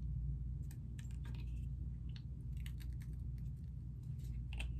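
Hands handling small cosmetic items and packaging: a scattering of light, irregular clicks and rustles over a steady low hum.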